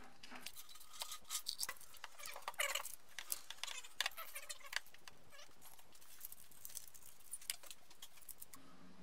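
Crinkling rustle of paint masking being peeled off a freshly painted brake caliper, with light clicks and knocks as the metal caliper and its carrier bracket are handled and set down on a wooden workbench. The rustling and clicks are busiest for the first few seconds and thin out to a few scattered taps.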